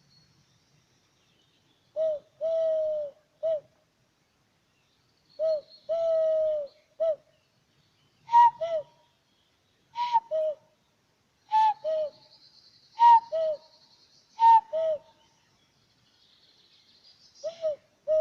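Imitated bird calls made as sound effects: soft, pure hoots like an owl's or a dove's. First come three-note groups of short, long and short hoots, then two-note pairs that drop from a higher note to a lower one, with pauses between the groups.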